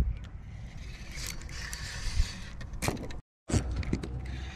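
Fishing reel being cranked as a small fish is reeled in: a whirring hiss with small clicks for about two seconds, over a low wind rumble on the microphone. A few sharper clicks follow, and the sound cuts out completely for a moment just after three seconds in.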